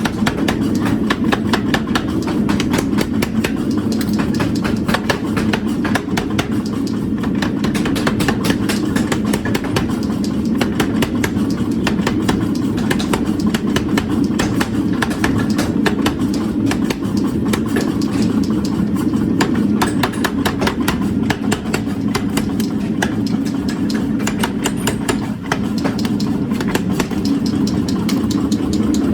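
Forging power hammer running, striking in rapid, evenly repeating blows over a steady machine drone.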